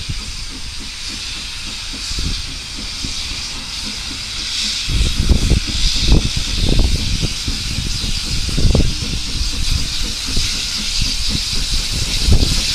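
Small tank steam locomotive approaching with a steady hiss of escaping steam, which grows louder from about five seconds in, over irregular low rumbles.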